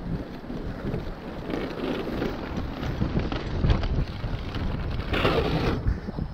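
Wind rushing over the camera microphone of a mountain bike descending a dirt trail, with the knobby tyres rolling and rattling over the ground. It grows louder as the bike gathers speed, with a louder rough patch about five seconds in.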